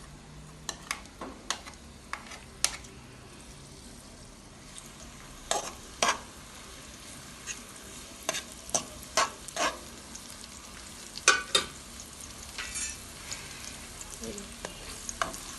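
Onion frying in hot oil with a steady sizzle, while a spoon knocks and scrapes against the pan in short sharp clicks as it is stirred.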